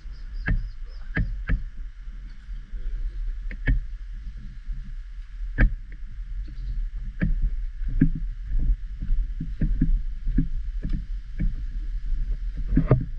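Footsteps on a dirt path strewn with dry leaves, an irregular run of soft knocks that come closer together in the second half, over a steady low rumble and a faint steady high hum in the background.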